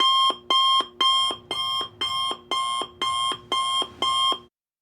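Electronic alarm beeping: nine identical two-part beeps, about two a second, each a high tone dropping to a short lower note, cutting off suddenly near the end.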